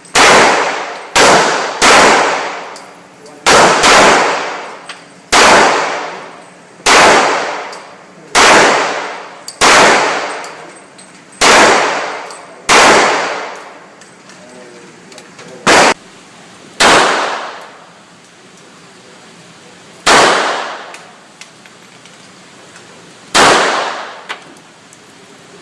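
Handgun shots fired one at a time at an irregular pace, about fifteen in all, each ringing out in a long echo; the gaps grow longer near the end.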